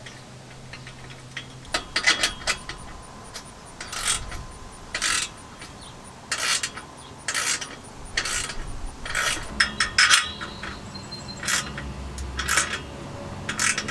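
Ratchet wrench clicking in short bursts, about one a second, as a socket turns the nut of an exhaust clamp on a cherry bomb muffler.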